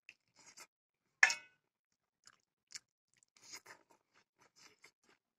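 Close-up eating sounds: quiet, scattered wet chewing and smacking of a mouthful of pork and rice, eaten by hand, with one sharp, much louder click about a second in.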